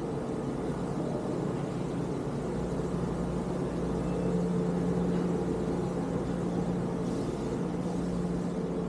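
A steady machine hum: a low drone with a couple of held tones over a hiss, swelling slightly about four seconds in.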